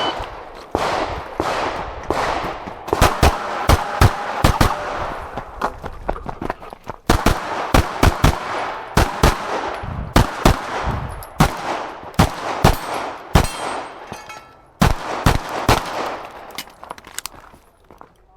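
A Glock 9mm pistol fired in rapid strings of shots through a competition stage, with short pauses between strings as the shooter moves or reloads. A short high shot-timer beep starts it off.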